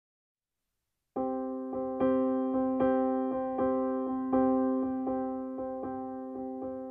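Background piano music that cuts in about a second in after a moment of silence, with notes struck every half second or so, each fading before the next.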